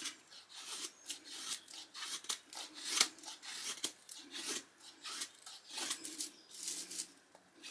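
Mora 510 carbon steel knife shaving curls off a stick to make a feather stick: a string of short scraping strokes, about one or two a second, the sharpest one about three seconds in.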